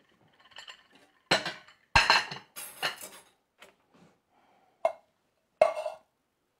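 Ceramic plates and dishes clinking and being set down on a countertop: a run of sharp clatters in the first half, the loudest about two seconds in, then two more knocks near the end.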